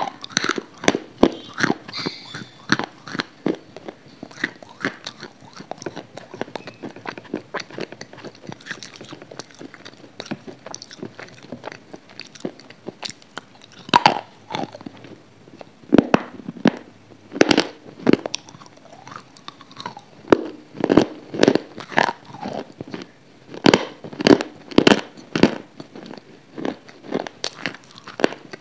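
A person biting and crunching something hard and brittle right up against the microphone: bursts of sharp crunches with wet chewing between them. The crunching thins out for several seconds in the middle, then comes back in loud clusters.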